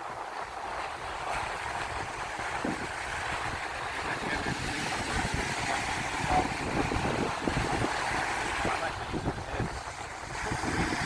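Surf washing on the beach, with wind buffeting the microphone in uneven low gusts.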